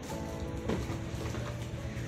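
Background music with sustained, held notes.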